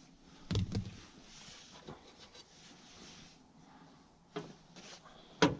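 Quiet handling noise of hands working a small fastener on an engine, with a soft knock about half a second in and a sharp click near the end as the small part drops to the ground.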